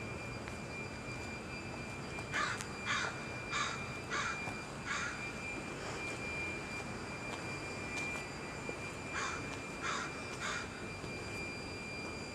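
A bird calling repeatedly: a run of five evenly spaced calls starting about two seconds in, then three more later. Under them are a steady low background noise and a thin steady high tone.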